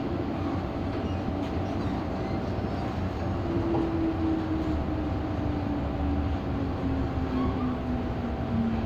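Inside an MTR Island Line M-Train car running through a tunnel: a steady rumble of wheels and running gear, with a few steady higher tones. From about three and a half seconds in, a traction motor whine falls slowly in pitch as the train slows into a station.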